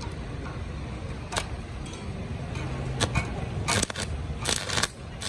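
Electric arc welding on the steel plate of an excavator boom: the arc is struck in short crackling bursts from about three seconds in, with one sharp crack earlier, over a steady low hum.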